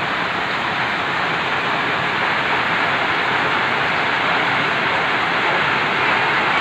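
Heavy rain falling on a clay-tile roof, heard from inside the house as a loud, steady hiss.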